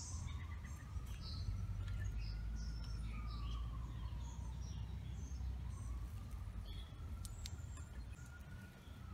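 A faint siren wailing slowly, its pitch rising and falling back in one long sweep and then a second sweep beginning about halfway through. Birds chirp now and then, over a steady low rumble.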